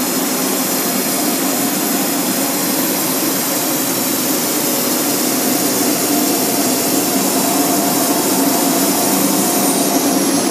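Horizontal flat-glass washing and drying machine running: a steady, loud blowing noise with a low hum from its drying-section air blower and roller drive.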